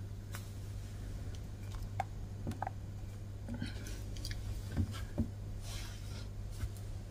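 Quiet room tone: a low steady hum with a few scattered faint clicks and soft rustles.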